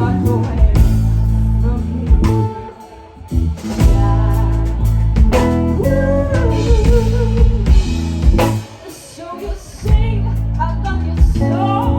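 Live band of electric bass, drum kit, keyboard and electric guitar playing a slow blues-soul ballad, with a sung vocal line sliding over it. The band drops out briefly twice, about three seconds in and again near nine seconds, and comes back in on a drum hit.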